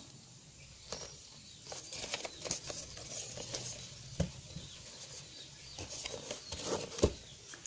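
Cardboard speaker box being handled and opened: scattered rustles, scrapes and light taps, with a sharp knock about four seconds in and a louder one near the end.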